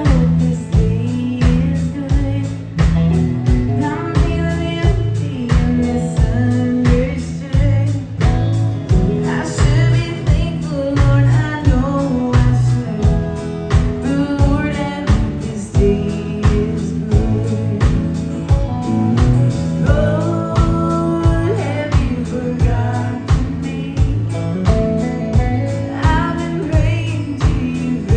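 Live country band playing: a woman sings lead over acoustic guitar, electric bass and a drum kit keeping a steady beat.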